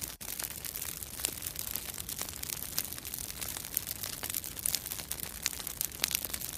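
Crackling fire sound effect: a steady noisy crackle with many sharp pops, cutting off abruptly at the end.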